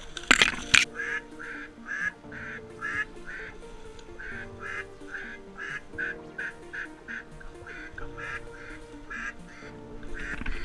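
Duck quacking in a long, evenly spaced series of about two to three quacks a second, over background music. Two sharp knocks sound about half a second in.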